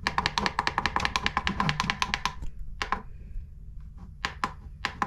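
Buttons on an Eton Zoneguard weather radio's keypad being pressed while setting its clock. A fast, even run of clicks, about ten a second, lasts for the first two seconds or so, then a few single clicks follow.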